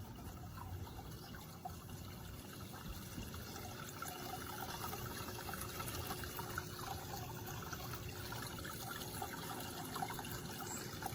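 Small outdoor wall fountain running, water trickling and splashing steadily into its basin.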